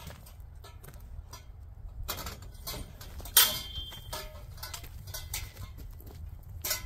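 Metal tent-frame poles clinking and knocking together as they are lifted and carried, with one sharp clang about halfway through that rings briefly. Wind rumbles on the microphone.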